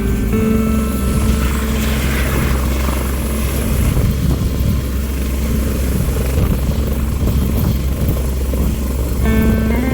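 Helicopter running close by, its rotor and engine making a loud, steady noise.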